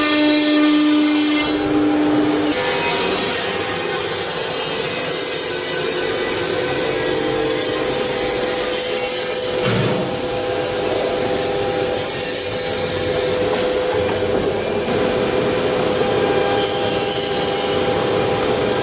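CNC router's 9 kW HSD air-cooled spindle cutting wood: a steady high whine over a continuous rasping cutting noise, its tone changing about two and a half seconds in.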